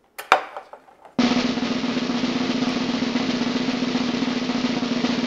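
A few light clinks of cutlery and plates, then about a second in a steady snare drum roll sound effect starts and runs on, a build-up for the tasting.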